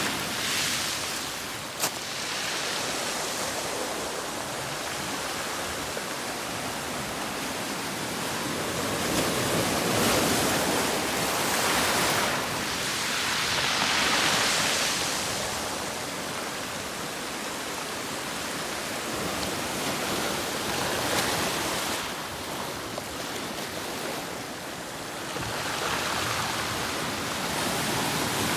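Ocean surf washing onto the shore: a steady rushing of water that swells and fades as waves come in, several times. A brief sharp click about two seconds in.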